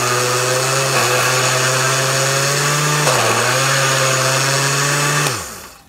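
Countertop blender's motor running steadily, shredding chunks of cheese in its glass jar. Its pitch dips briefly a little past three seconds, then it switches off and winds down near the end.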